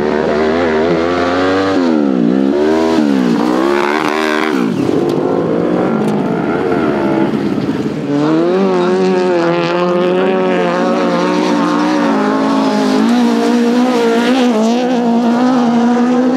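Autocross racing engines revving hard on a dirt track: the pitch swoops down and up several times in the first few seconds with throttle and gear changes, then holds high and fairly steady from about halfway.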